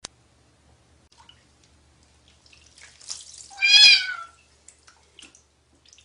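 A hairless cat sitting in a basin of water lets out one long, loud meow about three and a half seconds in. Small splashes and knocks of water come before and after it.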